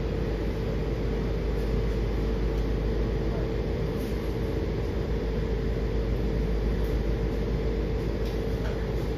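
Steady hum and rumble inside a WMATA Metrorail car standing at a station with its doors open, with a steady mid-pitched tone running through it.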